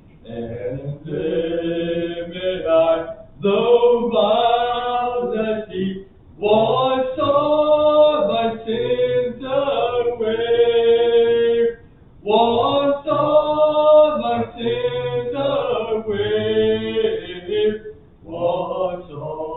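Voices singing a hymn with sustained, held notes, in long phrases separated by brief pauses for breath.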